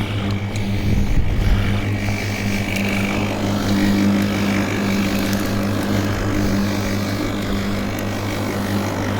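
WORX 40 cm cordless lawnmower's electric motor and blade running steadily in turbo mode while cutting grass, a constant hum with some low thumps about a second in.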